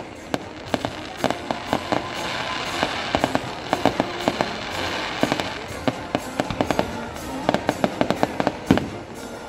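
Aerial fireworks going off in quick, irregular bangs several times a second, with crackling that swells in the middle, while music plays in the background.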